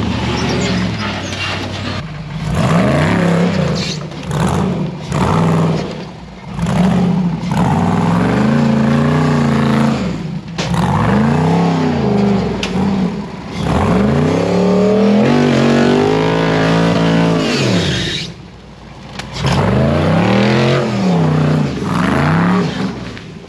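Off-road 4x4's engine revved hard and let off again and again, its pitch climbing and falling in repeated surges, as if the rig is being driven at a trail obstacle. The revving drops away briefly near the end, then picks up again.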